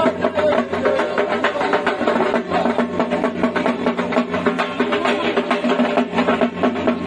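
Dhak, the large barrel drums of Durga Puja, beaten with sticks in a fast, dense rhythm, with steady tones running underneath.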